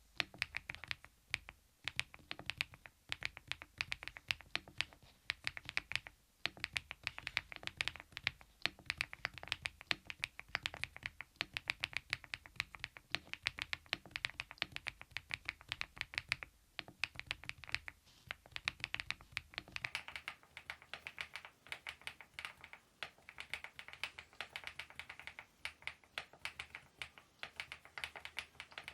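Continuous fast typing on a mechanical keyboard fitted with KeyTok Godzilla dye-sublimated keycaps, a dense run of keystrokes. About twenty seconds in, a low background hum drops away and the typing goes on.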